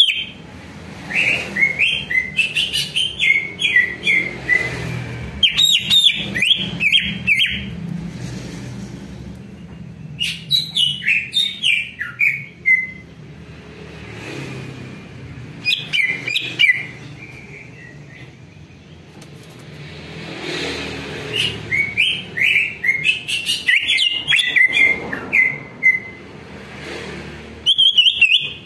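A male greater green leafbird (cucak ijo) sings in about six bursts of rapid, chattering chirps and slurred whistles, each a second or few long, with pauses between them and sharp clicks mixed into some of the bursts.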